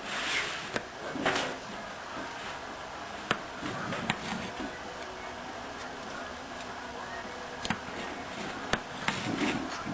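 A kitchen knife cutting baked squash into chunks, its blade clicking sharply against a cutting board every second or few.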